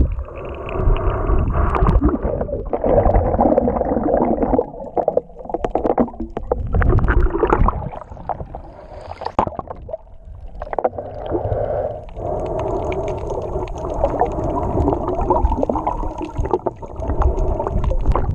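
Muffled underwater noise of water moving around a GoPro camera held just below the surface while snorkeling, in uneven swells a few seconds long.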